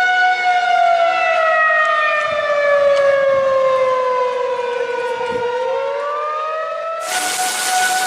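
Siren tone with many overtones in an emergency alert sequence: it holds its pitch, then slowly falls and rises again about five and a half seconds in. About seven seconds in, a loud static hiss starts up under a steady tone.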